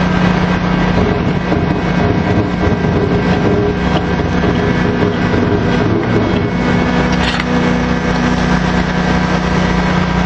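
Drilling-rig machinery running loudly and steadily: an engine drone with steady tones whose pitch shifts partway through, as the machinery takes load. A brief sharp noise cuts in about seven seconds in.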